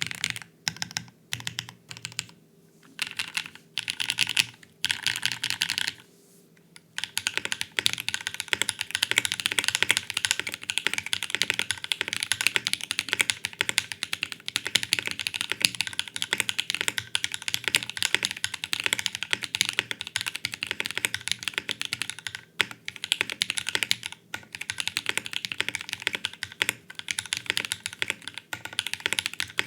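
Custom mechanical keyboard with a Portal case, lubed and filmed Raeds switches and GMK keycaps being typed on. At first come short bursts of keystrokes with pauses, on a carbon fiber plate. After a brief break about six seconds in, fast continuous typing follows on an FR4 plate.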